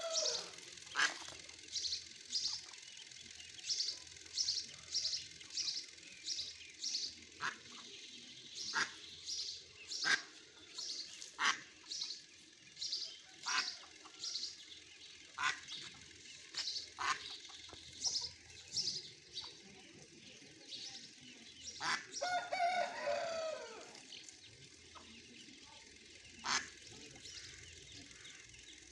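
Ducklings peeping: short, high calls, a couple a second at first and thinning out over the last several seconds, with a lower, rougher call about two-thirds of the way through.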